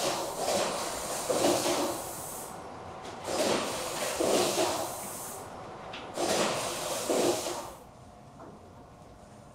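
Wheeled stainless steel racks loaded with bagged zongzi rolling on their castors towards a retort sterilizer: three rolling rushes of about two seconds each, then quieter near the end.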